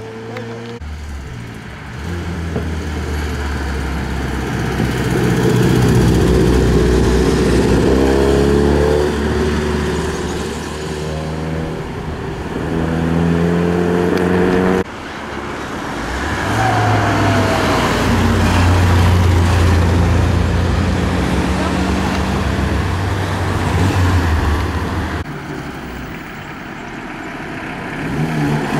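Rally car engines accelerating hard past, revving up and shifting through the gears, one car after another. The sound changes abruptly about halfway through and again near the end as the next car comes by.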